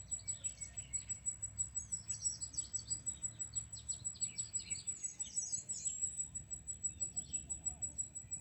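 Small birds chirping and calling in quick, overlapping phrases, over a thin steady high tone and a low steady rumble underneath.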